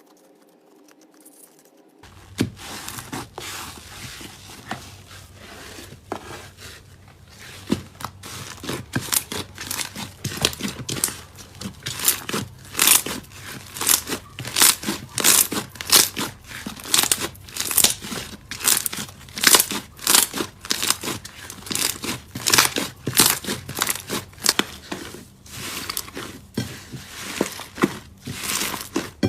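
Slime being squeezed and worked by hand, making dense crackling and popping clicks. It starts about two seconds in and settles into a regular rhythm of squeezes, one or two a second.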